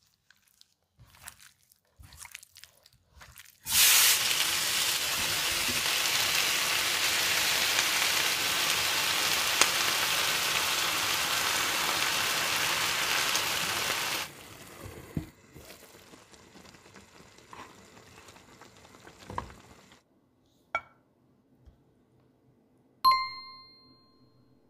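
Chicken pieces sizzling loudly in a hot frying pan for about ten seconds; the sizzle cuts off suddenly. Soft handling clicks come before it and quieter stirring clicks after it, and a single bright ding rings near the end.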